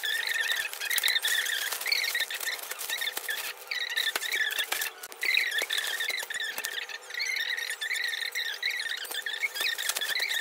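Plastic crinkling and rustling as a polythene courier bag is cut open with scissors and plastic-wrapped clothes are handled. Alongside it are repeated high, wavering squeaky chirps.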